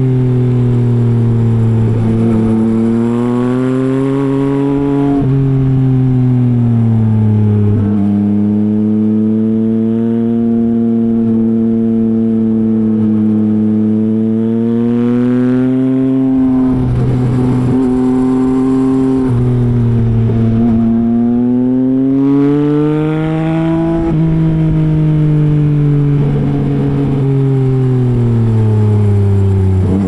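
Yamaha MT-09's inline three-cylinder engine running through a Revoc SP full exhaust system under way. The revs rise and fall continuously, with sudden steps in pitch several times as it changes gear.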